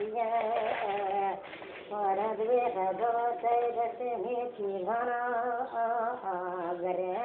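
A single voice singing a slow, ornamented melody with wavering, held notes, over a steady low hum. The singing breaks off briefly about one and a half seconds in.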